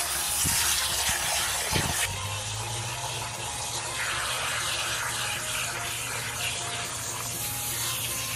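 Running water rinsing out the belly cavity of a crocodile carcass: a steady rush and splash of water that changes character about two seconds in.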